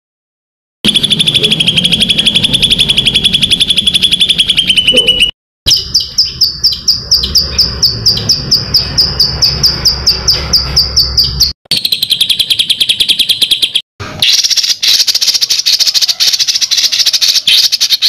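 Recorded songbird song in four spliced sections: fast, even trills and rapid runs of sharp, high repeated notes, each cutting off abruptly into a brief silence, about five, eleven and a half and fourteen seconds in.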